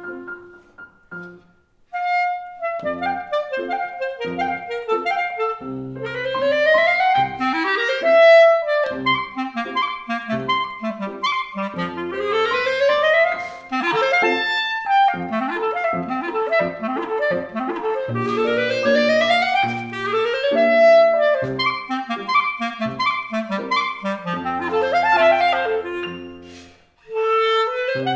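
Clarinet and grand piano playing a piece together, with fast rising runs. The music almost stops briefly about a second in and again shortly before the end.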